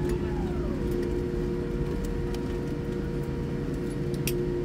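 Cabin noise of a Boeing 787-9 moving along the ground after landing: a steady rumble with a whine that falls in pitch during the first second, light ticks and a sharp click near the end.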